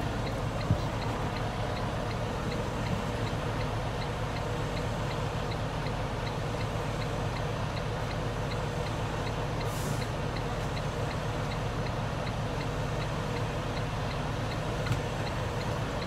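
Semi truck's diesel engine idling steadily, heard inside the empty cab, with a light regular ticking about two or three times a second.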